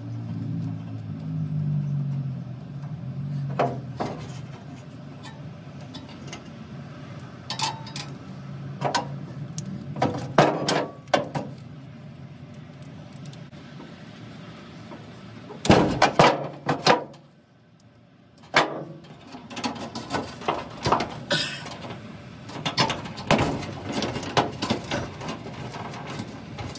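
Hands handling dryer wiring and electrical tape while the burnt purple wire is repaired: scattered small clicks and rustles of wire and tape, a louder burst of handling noise about halfway through, then a quick run of small clicks as a connector is worked back into place.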